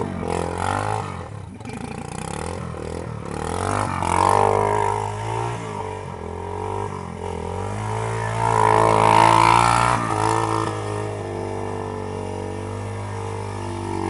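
1999 Yamaha Wolverine 350 ATV's single-cylinder four-stroke engine running as it is ridden around, the revs rising and falling, loudest about four seconds in and again around nine seconds.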